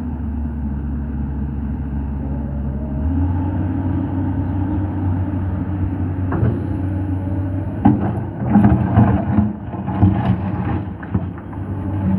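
Komatsu PC200 excavator's diesel engine running steadily under load, its note stepping up about three seconds in. From about eight seconds in, irregular clattering knocks of rock and sand against steel come through over the engine.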